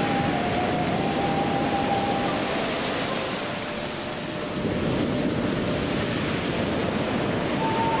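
Sea waves washing onto a shore: a steady rush that eases a little midway and swells again. A soft melody of long held notes plays faintly over it for most of the time.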